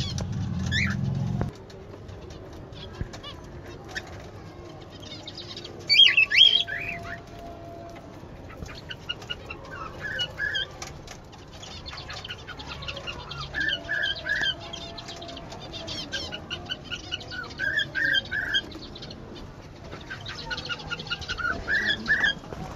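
Zebra finch colony calling: short repeated calls from several birds, coming in clusters every few seconds, with a loud burst of calls about six seconds in.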